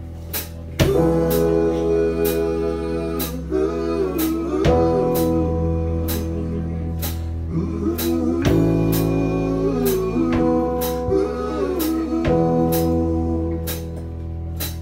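Live band playing a song's intro: a drum kit keeps a steady beat while electric guitar, bass, acoustic guitar and keyboard hold chords that change every few seconds. The full band comes in about a second in.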